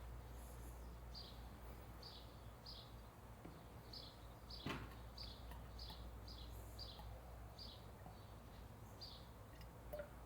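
Faint small bird chirping over and over, about once or twice a second, with a steady low hum beneath and a single click about halfway through.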